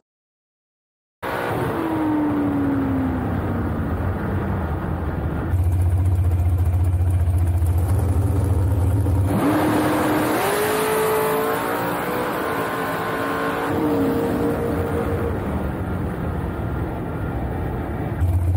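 Onboard sound of a dragster: its engine and wind noise as the car slows with a falling whine, then a low, steady engine rumble, then a sharp rising whine that settles to a steady pitch, with abrupt cuts between these pieces. It opens with about a second of silence.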